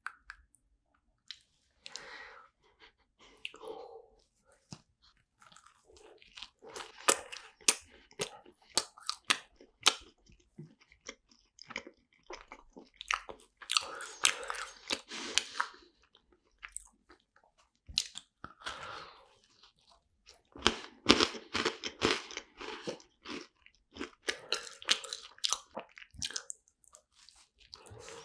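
Close-miked biting and chewing of shell-shaped filled macarons: the crisp shells crackle in bursts of sharp clicks, with short pauses between mouthfuls.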